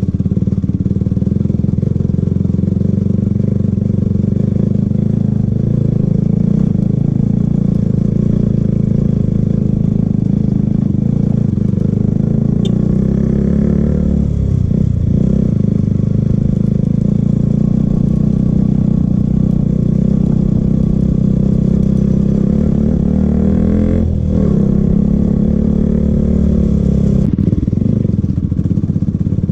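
Motorcycle engine running steadily under way, the pitch briefly falling and recovering about halfway through and again about four fifths in, as the throttle is eased and picked up again.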